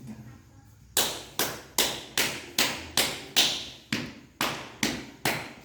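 About eleven sharp hand strikes in an even rhythm, roughly two and a half a second, starting about a second in.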